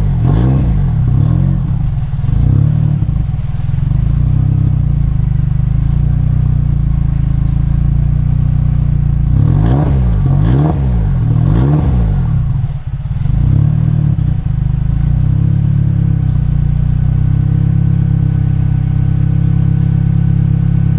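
Car engine with an aftermarket exhaust idling, with a couple of throttle blips at the start and three quick revs about ten seconds in, then settling back to a steady idle.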